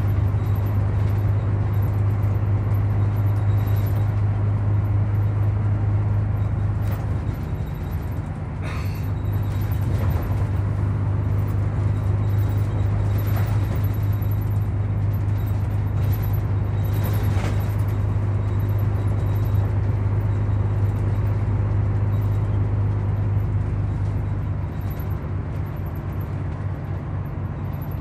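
Mitsubishi Fuso New Aero Star (KC-MP747M) city bus under way, heard from inside the passenger cabin: a steady low diesel engine drone with road noise. It eases off briefly about eight seconds in and again near the end, with a few light knocks from the body.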